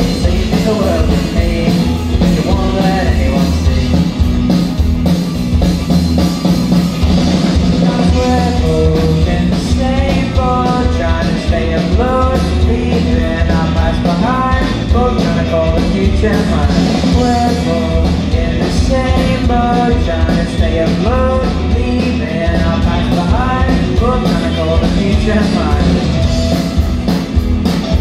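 A rock band playing live: electric guitars, bass guitar and a drum kit, with a male singer.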